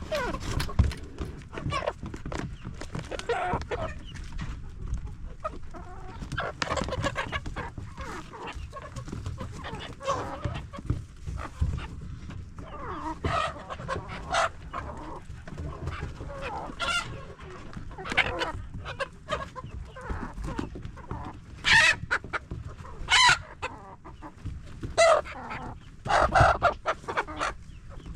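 A flock of domestic chickens clucking and squawking in short, irregular calls, with a few louder squawks late on, over a steady low rumble.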